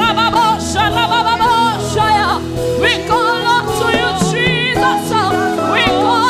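Gospel worship song: a lead singer with strong vibrato over sustained instrumental backing.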